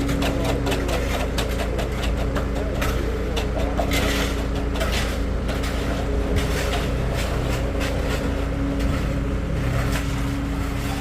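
An engine running steadily, with many short scrapes and knocks over it.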